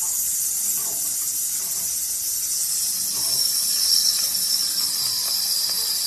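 A steady high-pitched hiss, with a faint tone inside it that slides slowly downward.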